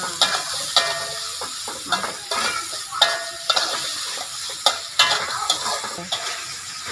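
Slotted metal spatula scraping and knocking against an aluminium wok as chicken innards are stir-fried, with a steady sizzle of frying underneath. The strokes come irregularly, about every half second.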